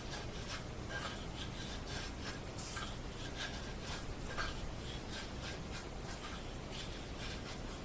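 Small block plane taking repeated short strokes across a maple plug in a mandolin neck, a dry shaving hiss on each stroke, about two strokes a second.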